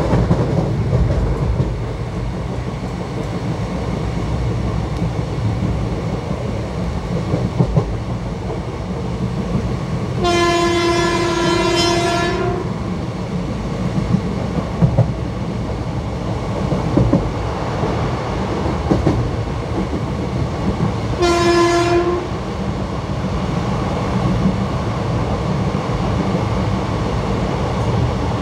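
ICF passenger coaches running on the track, a steady rumble with irregular wheel clicks over rail joints. The WCAM2 electric locomotive's horn sounds twice on one pitch: a long blast about a third of the way in and a short one about two-thirds in.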